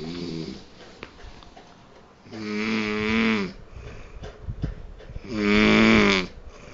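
A man snoring in his sleep: the tail of one snore at the start, then two loud snores about three seconds apart, each lasting about a second, with quieter breathing between.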